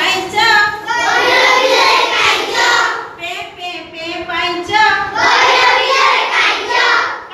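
A group of young children singing a rhyme together in unison, with short breaks between lines.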